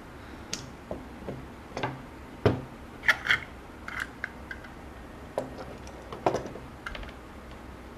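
Metal bar clamps being loosened and taken off a glued plastic case: a handful of scattered sharp clicks and knocks from the clamps' jaws and bars, the sharpest about two and a half seconds in, with short rattles a little after three seconds.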